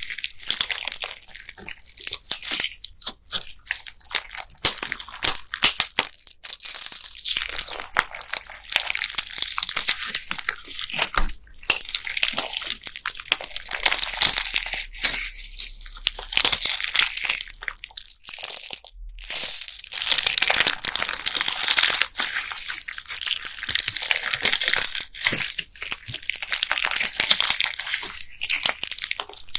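Hands kneading and pressing slime packed with plastic beads, giving a dense, unbroken run of small crackles and clicks.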